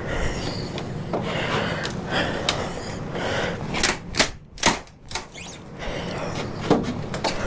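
Nailed wooden shipping crate being pried apart with a pry bar: wood and nails creaking and scraping, then several sharp knocks from about halfway through.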